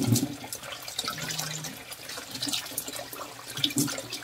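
Tap running into a basin of water in a kitchen sink, with irregular splashing as a hand scoops and works water over a wet cat being bathed.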